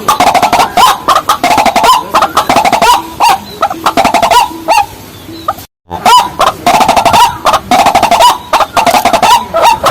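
Rails calling: loud, harsh clucking calls of white-breasted waterhens and watercocks, repeated rapidly and densely. A series of lower, evenly spaced notes runs between about three and five seconds in, and the sound cuts out completely for a moment just before six seconds.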